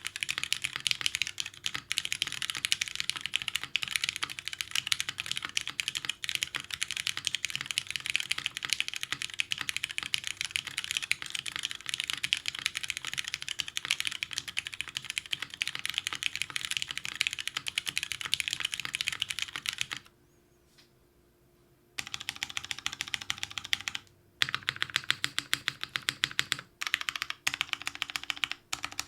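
Fast continuous typing on a TGR 910 ME mechanical keyboard with lubed Cherry MX Brown tactile switches in a top-mounted aluminium plate, no dampening, and GMK keycaps. It stops for about two seconds roughly two-thirds of the way through, then resumes in shorter runs with brief pauses.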